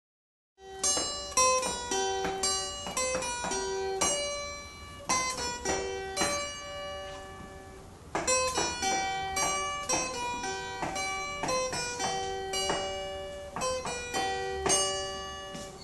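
Acoustic guitar picking a song intro: single plucked notes ringing one after another, with the melodic phrase starting over about halfway through.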